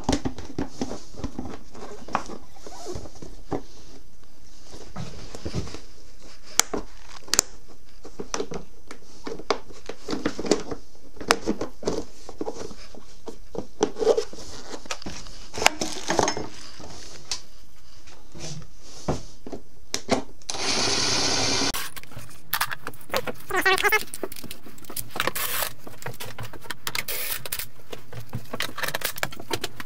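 Scattered clicks, knocks and light plastic rattles of hand work fitting plastic side panels onto a Yamaha YZ450F dirt bike. About two-thirds of the way in there is a brief steady whirr lasting about a second and a half.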